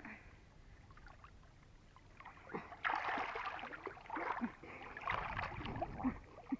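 Water splashing and sloshing in irregular bursts, starting about three seconds in.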